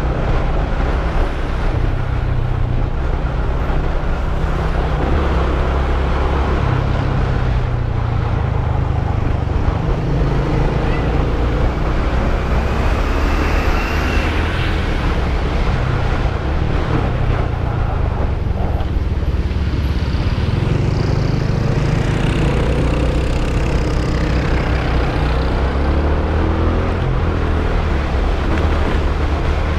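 Modenas GT128's small single-cylinder four-stroke engine running under way, its note rising and falling with the throttle, mixed with wind rush on the microphone and the sound of surrounding traffic, including a truck alongside about halfway through.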